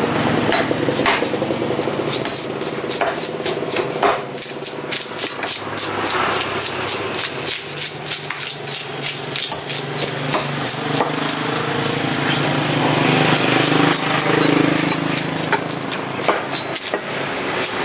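Large knife chopping and slicing through giant trevally fillets on a wooden chopping block: a string of sharp knocks that comes quicker and denser in the last few seconds. A steady engine hum runs underneath.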